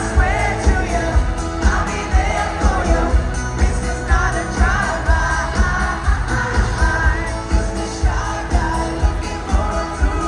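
Live pop-rock band playing, a male lead singer singing over a steady drum beat, heard from within the audience.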